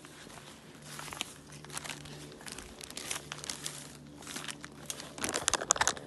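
Rustling and crinkling handling noise as the phone is moved and rubbed against cloth or a hand, growing denser and louder in the last second as the microphone is covered.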